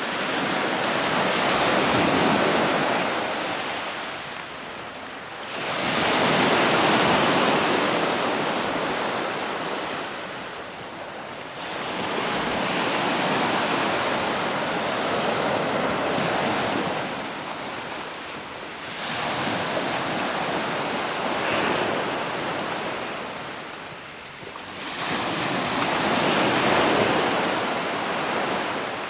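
Stormy Black Sea surf breaking at the embankment: loud rushing waves that swell and ebb in repeated surges, about one every five to six seconds.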